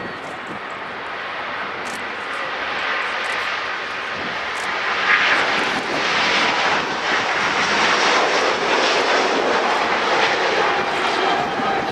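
Airbus A350-900 jet engines (Rolls-Royce Trent XWB turbofans) at take-off power: a broad rush of jet noise that builds louder over the first half and then holds.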